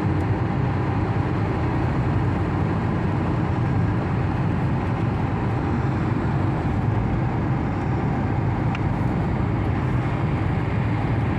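Steady road and engine noise of a moving car: an even low rumble with a hiss above it.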